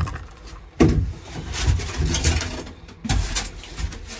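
Insulation pieces being handled and fitted into the camper's wooden bunk frame: irregular scraping and rubbing, with a sharp knock about a second in and another about three seconds in.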